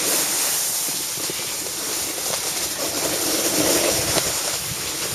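Steady rushing noise of wind on the microphone and a snowboard sliding and scraping over packed snow while riding down a slope.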